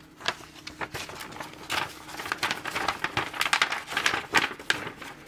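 A folded paper poster rustling and crinkling as it is handled, a quick irregular run of crisp crackles.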